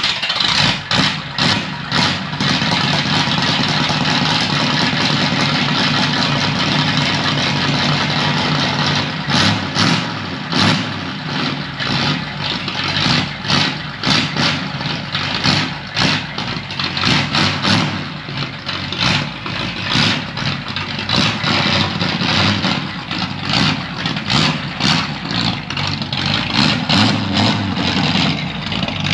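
Ford 59AB flathead V8 on straight pipes, firing up and running rough, then revved in repeated short blips from about nine seconds in with sharp pops between them. The owner puts the choppy, breaking-up revving down to the ignition timing and vacuum advance not yet being set.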